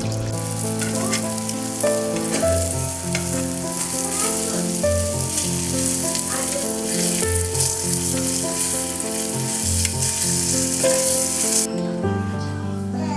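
Food frying in a pan, a steady sizzle with scattered small pops and ticks, which cuts off abruptly near the end.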